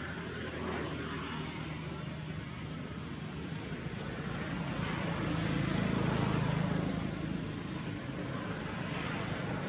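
A distant engine droning steadily, growing louder around the middle and easing off near the end.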